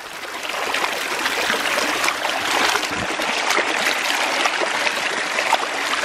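Shallow, fast-running stream rushing and splashing around a person's legs and sandalled feet as they wade through it, a continuous rush with many small splashes.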